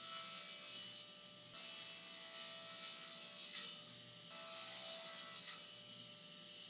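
A large plywood sheet sliding across a table saw's metal top in three pushes, each a dry rubbing hiss of one to two seconds with short pauses between.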